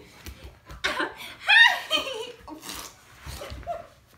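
A woman laughing in several short peals, loudest about a second and a half in.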